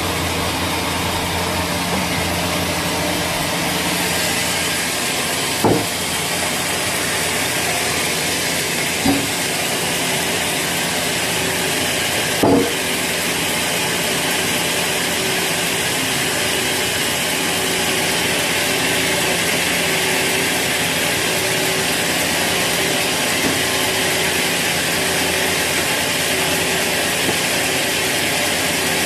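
Sawmill saw running steadily while cutting a teak log, a continuous machine drone and hiss. Three sharp knocks stand out, a few seconds apart in the first half.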